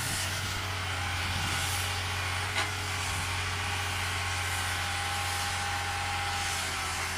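Excavator engine running steadily, with a low steady drone and a thin whine above it, and one sharp knock about two and a half seconds in.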